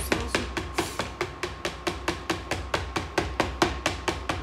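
A wooden board holding a silicone mould of freshly poured chocolate glaze is tapped rapidly on the induction hob, an even run of sharp wooden knocks about seven a second. The tapping settles the glaze flat and smooth in the mould.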